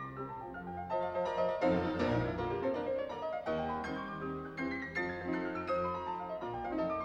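Background piano music in a classical style, with runs of notes stepping downward.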